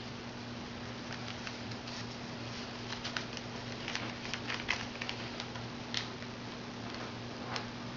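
Origami paper being folded and creased by hand: scattered small crinkles and ticks, busiest in the middle, over a steady low hum.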